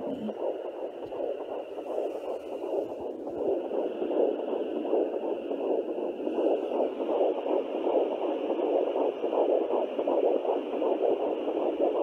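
Sonoline B 3 MHz pocket fetal Doppler playing pulsing heartbeat sounds through its speaker, with the mother's artery and the fetus's heartbeat both picked up at once, at about 11 weeks of pregnancy.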